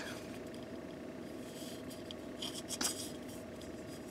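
Faint handling sounds of a steel oil filter canister turned over in the hands: a few light taps and rubs of fingers on the metal can, the loudest about three seconds in, over a steady faint hum.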